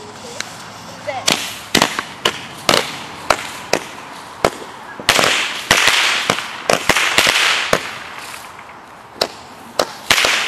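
Consumer fireworks going off: an irregular string of sharp bangs, with two stretches of dense crackling hiss, one about halfway through and one near the end.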